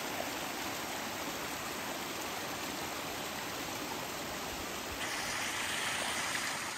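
Small mountain stream running and splashing over rocks, a steady rush of water that turns a little louder and brighter about five seconds in.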